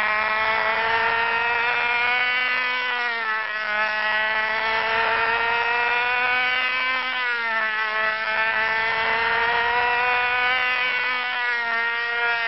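Webra .20 (3.5 cc) two-stroke glow engine of a control-line model plane running at full throttle, a steady high-pitched buzz. Its pitch dips and comes back about every four seconds as the plane circles past on its lines.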